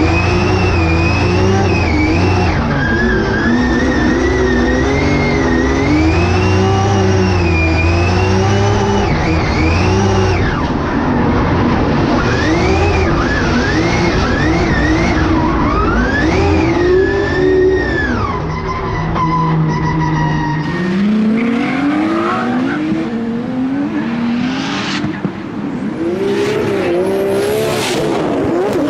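Drift car's engine revving hard, its pitch rising and falling constantly as it is held sideways through a tandem run, with tyres squealing, heard from inside the cockpit. About twenty seconds in, the sound changes to a trackside view of two drift cars sliding side by side, with engines revving and tyres screeching.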